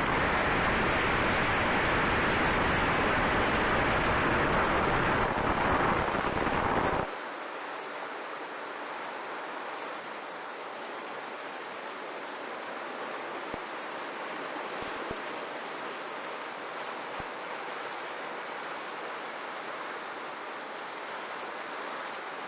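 Rushing airflow and motor noise of a Mini Talon RC plane in flight, picked up by its onboard camera's microphone: a loud, steady rush that drops suddenly about seven seconds in to a quieter, steady hiss.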